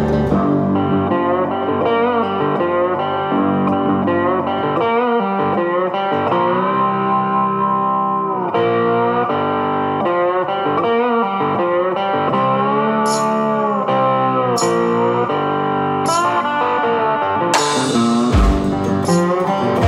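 Background music led by guitar, with long held notes that bend in pitch.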